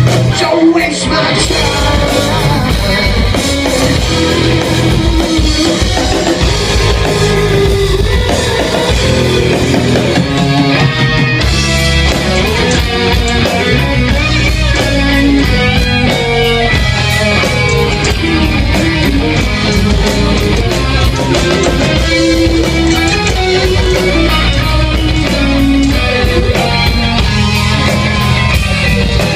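Rock band playing live at full volume: electric guitars, bass and drum kit in a steady, driving rock song.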